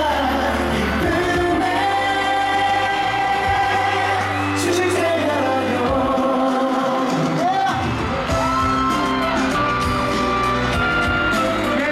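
Live pop song played over a concert sound system, with a sung lead vocal over a steady bass line, recorded from the audience in a large hall.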